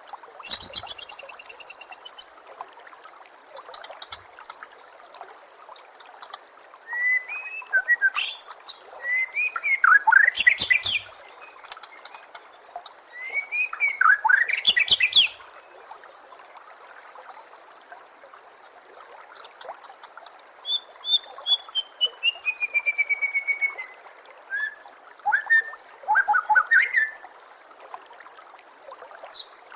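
White-rumped shama (murai batu) singing in bursts of varied phrases, with rapid high rattling trills, quick whistled notes and a descending run of whistles, separated by short pauses. A steady trickle of running water goes on underneath.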